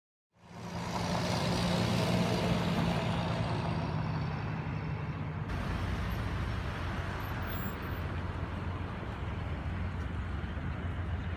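Road vehicle driving: steady engine hum and road noise, starting just after the opening and changing abruptly about five and a half seconds in.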